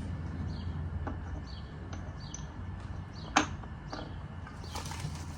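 Small hard miniature curb pieces being handled and set down: a few light clicks and one sharp click about three and a half seconds in, over a steady low hum.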